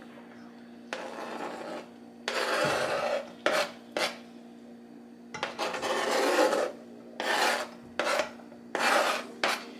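A kitchen utensil scraping in a pot on the stove: about seven separate rasping strokes, each under a second, over a steady low hum.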